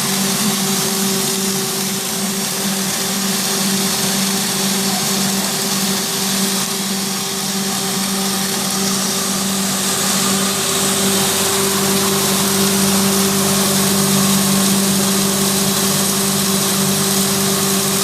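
Maize grinding machine (feed grinder) running: a steady motor hum under a dense rushing noise.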